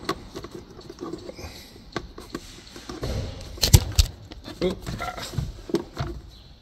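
Plastic glove-box fittings under a car dashboard being handled and pushed into place: scattered light clicks and rubbing, with two loud knocks a little after halfway and a few short squeaks after them.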